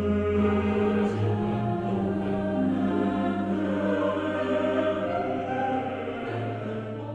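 Choral music: voices holding long sustained chords over a low bass note, growing softer near the end.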